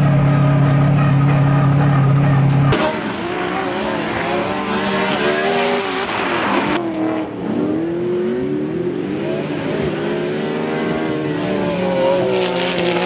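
LS-swapped V8 of a drift BMW E92 M3, heard first from inside the cabin as a steady loud drone at constant revs. About three seconds in the sound changes abruptly to the car from outside, its engine revving up and down repeatedly over tyre squeal as it drifts.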